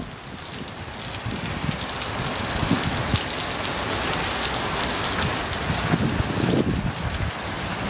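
Thunderstorm downpour: heavy rain falling on gravel and grass, a steady hiss of drops that grows steadily louder.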